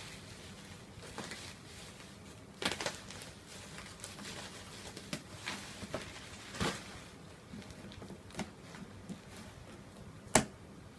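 Packaging being handled and opened: scattered rustling with light knocks and clicks, the sharpest knock near the end.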